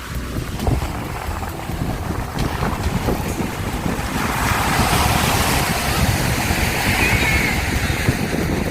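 Surf washing on a beach under heavy wind buffeting on the microphone, the wash of the waves swelling from about halfway through.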